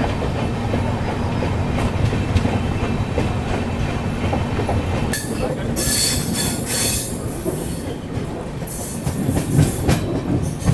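Double-decker express train running on the rails and picking up speed: a steady rumble of coach wheels with clickety-clack over the rail joints. Two spells of hissing rush come in about halfway through and near the end.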